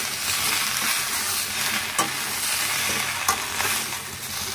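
Cabbage Manchurian balls with onion and capsicum sizzling in a pan on high flame as they are stirred with a spatula, with a couple of sharp clicks of the spatula against the pan.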